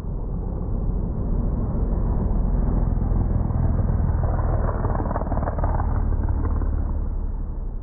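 Porsche 911 race car's flat-six engine passing, heard slowed down as a deep, drawn-out rumble that swells and then fades near the end.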